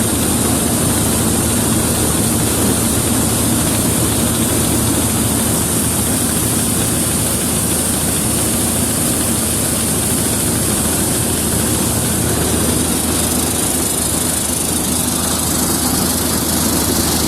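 1960s Dania 900 self-propelled combine harvester running steadily while working: a constant low engine drone with a high hiss over it.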